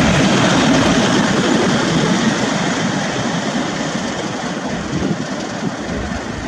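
Class 37 diesel locomotive 37099 passing close as a light engine, its English Electric V12 diesel engine running, then moving away with the noise fading gradually.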